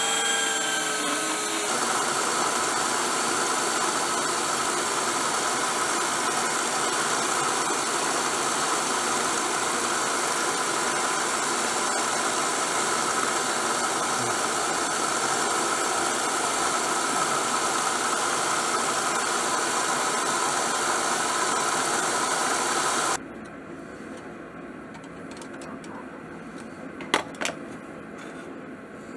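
Black+Decker bench belt sander running with a steel knife blade ground against the belt: a steady grinding hiss over the motor hum. It stops abruptly about 23 seconds in, leaving a quieter background with a couple of sharp metal clicks near the end.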